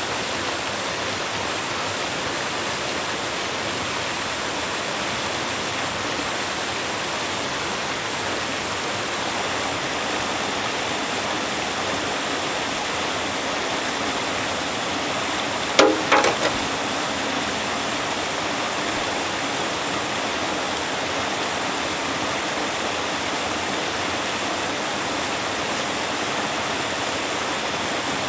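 A steady rushing noise, with a short clatter of a few sharp knocks about halfway through.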